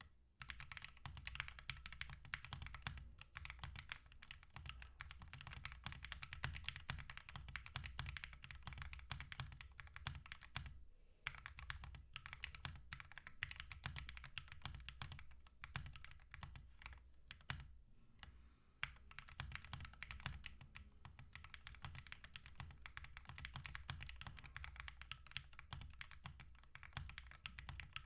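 Typing on a Mode65 mechanical keyboard fitted with aluminum Aluvia keycaps: a continuous run of quick keystrokes. There are short pauses about 11 seconds in and again around 18 seconds.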